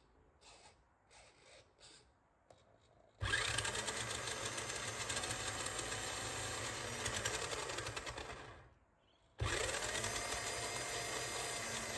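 Electric motor and gear drivetrain of a vintage Tamiya Ford F-150 Ranger XLT chassis running on a stand with the wheels spinning freely in a bench test. After a few faint clicks it starts suddenly about three seconds in and runs for about five seconds before winding down. It starts again about a second later.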